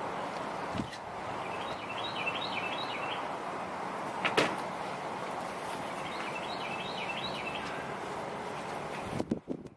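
Wind blowing steadily, with a songbird twice singing the same short phrase of several quick notes, and a single sharp click about four seconds in. Near the end the wind noise cuts off suddenly and a few knocks follow.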